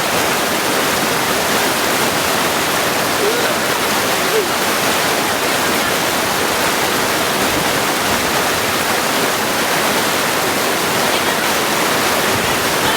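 Mountain stream rushing steadily over rocks, with a few small gurgles about three to four seconds in.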